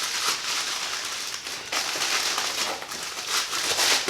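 Packaging rustling and crinkling as a package is handled and pulled open, in irregular bursts.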